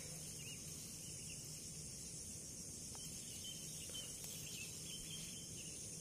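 Steady, high-pitched chorus of field insects, with one faint tick about three seconds in.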